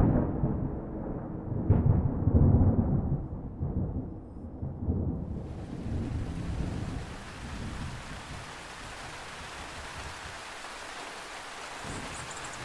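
Thunder rumbling loudly, with a second crack about two seconds in, dying away over the next few seconds. About five seconds in, heavy rain hiss comes in suddenly and continues steadily.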